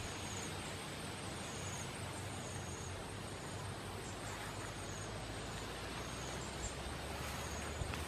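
Steady outdoor background noise with a faint insect chirping in short, high trills about once a second.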